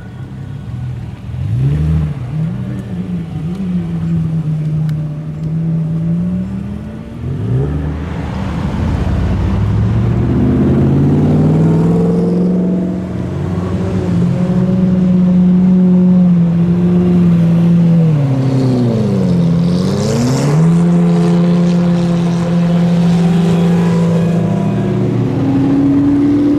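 Sports cars' engines as the cars drive slowly past one after another, revving with pitch rising and falling. Later one engine holds a steady high note, and about two-thirds of the way through its pitch dips sharply and climbs straight back.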